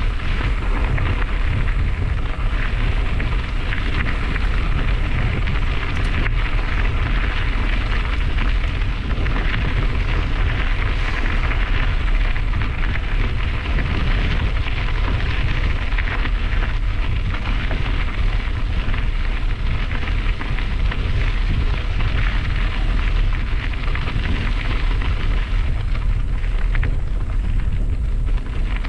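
Bicycle tyres rolling over a crushed-gravel trail with a steady fine crackling crunch, under a constant low rumble of wind on the microphone of the moving bike.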